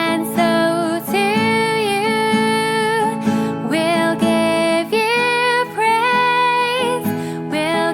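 A female voice singing a melody in held, gliding notes over strummed acoustic guitar.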